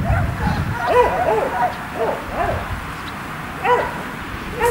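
German Shepherd dog giving short, high, arched whining yips, several in quick succession about a second in and a single one near the end.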